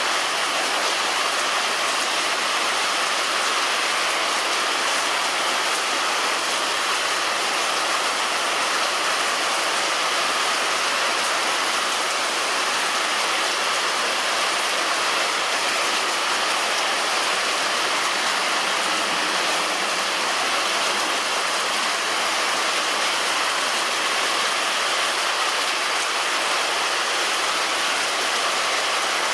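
Heavy rain falling on a roof, a steady dense hiss with no single drops or thunder standing out.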